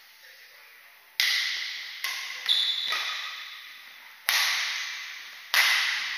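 Badminton racket strikes on a shuttlecock during a doubles rally: a run of sharp cracks, each ringing out in the large hall, beginning about a second in, with three loud hits and a few lighter ones between them.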